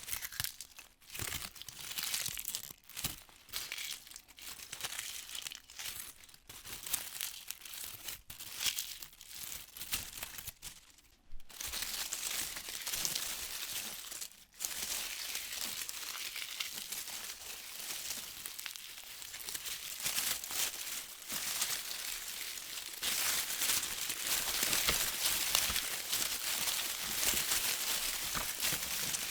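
Wind in trees, leaves rustling in gusts. The rustle comes in short surges and brief lulls at first, then turns steadier and somewhat louder through the second half.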